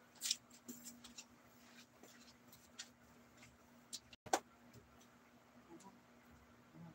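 Faint scattered clicks and light knocks from something being moved against or near the phone, with two sharper knocks: one just after the start and one a little past four seconds in. A low steady hum runs underneath.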